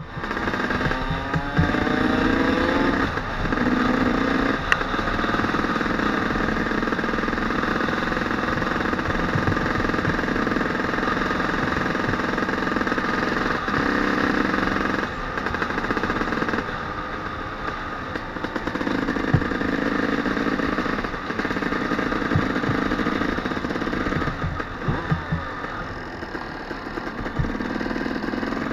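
Suzuki RM250 two-stroke single-cylinder engine under way, revving up through the gears in the first few seconds. It then runs on at a steady pace, with dips in level around the middle and near the end.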